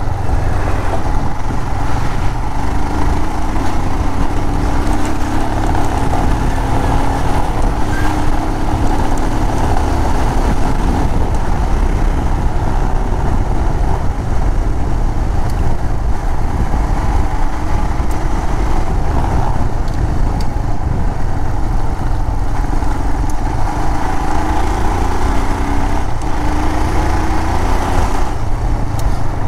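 Motorcycle engine running steadily while riding, its note drifting slowly up and down, under a heavy, steady rumble of wind on the microphone.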